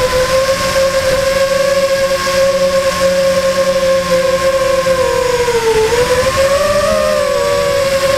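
FPV quadcopter's electric motors and propellers whining steadily, as heard from its onboard camera; the pitch dips about six seconds in, then rises again.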